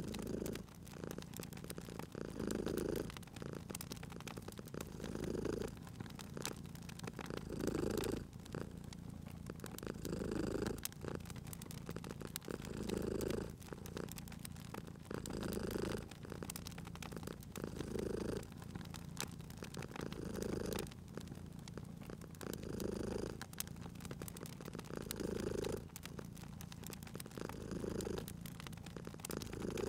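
Domestic cat purring steadily, swelling louder about every two and a half seconds with each breath, over the faint sharp crackle of a wood fire.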